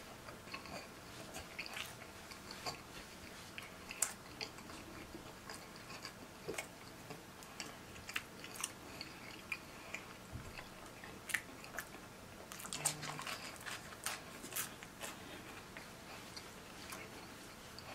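Close-miked chewing of pepperoni pizza, with many irregular sharp clicks and smacks of the mouth.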